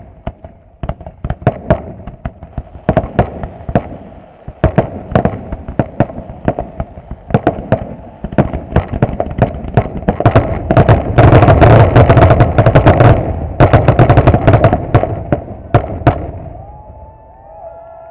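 Fireworks display: aerial shells bursting in rapid, overlapping reports. They build to a dense, loud barrage about ten seconds in, and the bursts stop about two seconds before the end.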